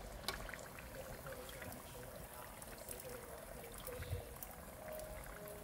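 Egg rolls deep-frying in a pot of oil, a steady sizzle full of small crackles. Metal tongs click now and then, with a soft knock about four seconds in as one egg roll is lifted out of the oil.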